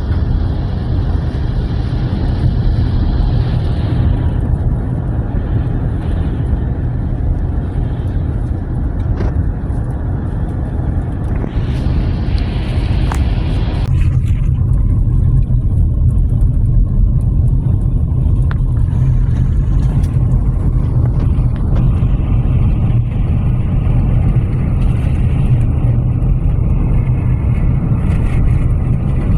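Car driving: a steady low rumble of engine and road noise, with two short spells of hiss, one at the start and one about halfway through.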